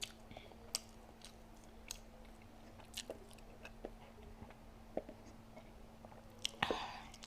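Close-up chewing and biting of fast food: scattered small crunchy clicks, with a louder noisy burst near the end.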